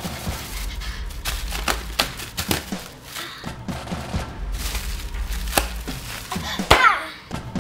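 Plastic bubble wrap being popped by a toddler: a string of sharp, irregular pops, with the loudest pop near the end.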